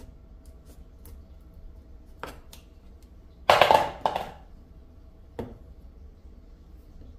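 Kitchen knife clicking on a bamboo cutting board as a raw chestnut is scored, then a loud clatter of chestnuts against a metal bowl as the next one is taken, and a single knock as it is set down on the board.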